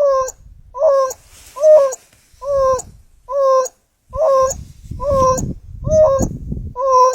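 A wild dog giving its contact call: a series of short, clear, hooting calls repeated at a steady pace of a little more than one a second, about nine in all.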